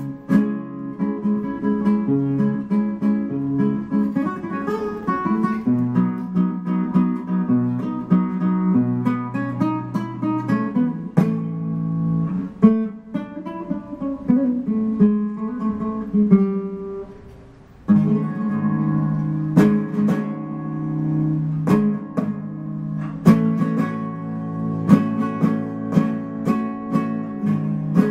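Solo nylon-string flamenco guitar playing a tarantas: melodic runs over ringing bass notes, then a brief lull a little past halfway, after which it switches to sharp strummed chords.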